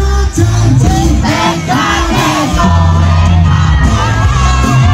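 Live band music played loud through a concert PA, with heavy bass, while a male singer sings into a handheld microphone and the crowd shouts along.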